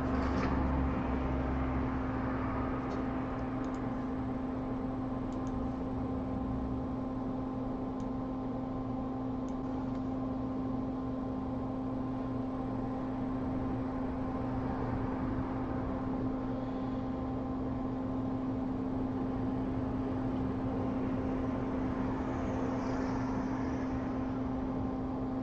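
Hot air rework station blowing steadily: an even hiss of air over a constant low hum.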